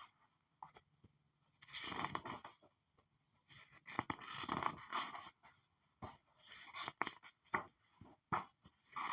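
Paper pages being flipped: two longer rustling swishes, then a quicker run of shorter, crisper page flips in the second half.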